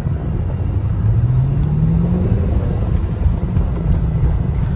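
Qvale Mangusta's Ford 4.6-litre Mustang Cobra V8 heard from inside the cabin while driving. The engine note rises as the car accelerates about a second in, then eases, over a steady low rumble.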